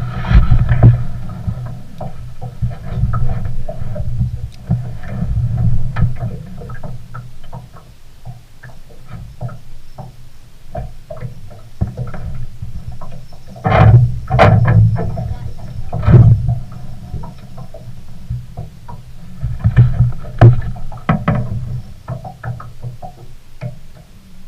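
A small boat on the water: a loud, uneven low rumble with irregular knocks and clatter, heaviest in bursts about halfway through and again later.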